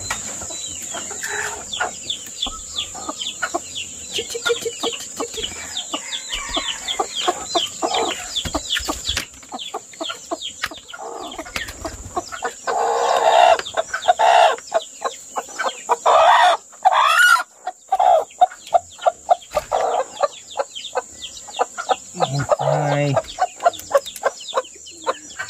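Chickens clucking with a rapid stream of high peeps from newly hatched chicks, and a longer, louder crow-like call about halfway through.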